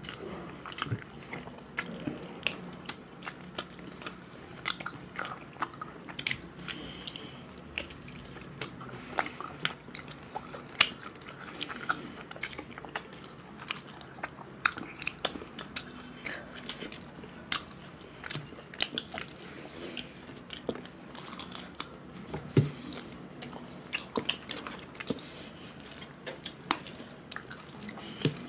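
Chewing and biting as two people eat rice and meat curry with their hands, with many irregular sharp clicks throughout.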